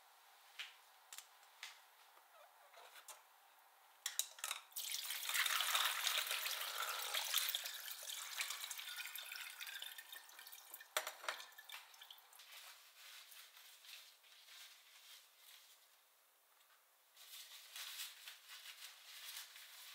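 Light drips and ticks, then about four seconds in, water pours and splashes into a stainless steel sink for several seconds as washed strawberries are drained in a mesh strainer. A sharp knock follows, and cloth rustles near the end as hands are dried with a towel.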